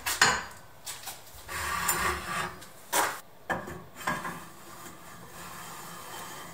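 Square steel tubing sliding and clanking in a bolted metal bracket on a workshop machine: several sharp metal knocks and a scraping slide, quieter near the end.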